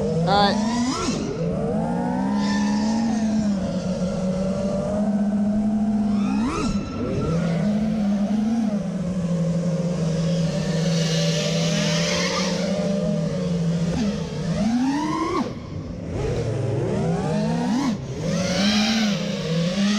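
FPV racing quadcopter's brushless motors and propellers whining, the pitch rising and falling with the throttle. There are sharp rising whines about 7, 15 and 18 seconds in as the throttle is punched.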